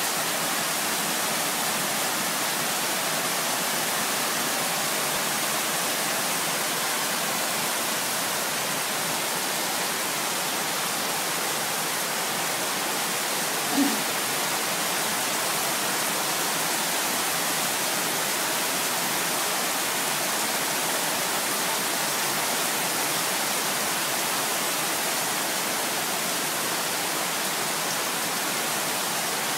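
Heavy rain falling in a steady, even hiss, with one brief low tone about halfway through.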